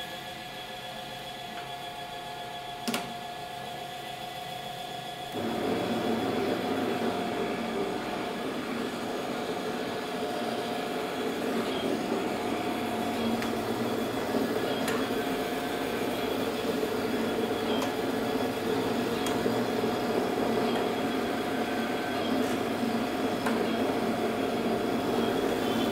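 Fully automatic cotton wick making machine switching on about five seconds in and then running steadily, a motor-driven whir with occasional faint clicks. Before it starts there is a quieter hum and a single click.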